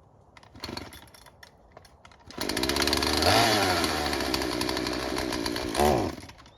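Two-stroke chainsaw engine: a short burst about half a second in, then it runs loudly from about two seconds in, revving up twice, and cuts off suddenly near the end.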